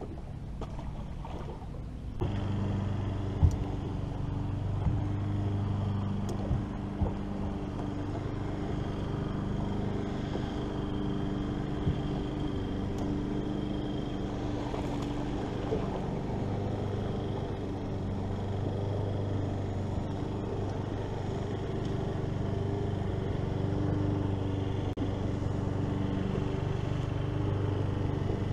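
Bass boat's bow-mounted electric trolling motor running with a steady low hum, switched on about two seconds in, with a few light knocks on the boat deck.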